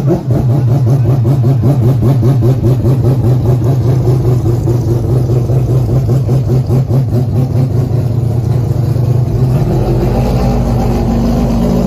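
Four-rotor Mazda rotary racing engine running loud and steady just after starting, with a fast, even pulse. About ten seconds in the note shifts lower and smoother.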